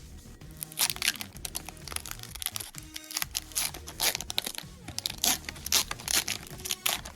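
Crinkling and tearing of foil trading-card booster-pack wrappers, with cards being handled in quick, irregular rustles, over steady background music.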